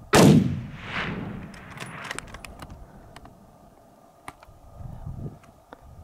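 A single rifle shot with a sharp crack, its report rolling back off the hillsides as an echo about a second later, followed by a few faint clicks.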